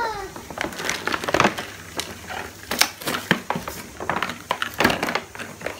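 Clear plastic blister packaging crinkling and crackling as it is peeled and pulled by hand, in irregular sharp snaps.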